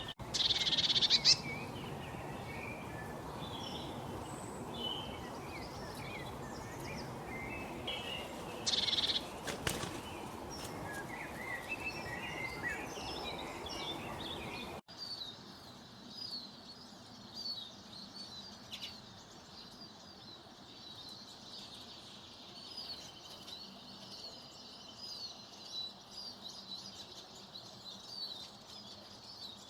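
Wild birds chirping and calling over a steady background hiss, with two louder calls about a second in and about nine seconds in. About halfway through the sound cuts abruptly to a quieter, busy chorus of short high chirps.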